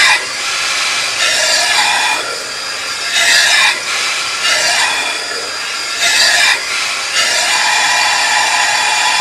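Compressed air hissing and spluttering out of the leaking seals of a prototype two-cylinder rotary steam engine packed with an oil-and-sawdust sealant, swelling louder about five times, with squeaky warbling sounds mixed in. The air is blowing past the rotors: the seals are not holding.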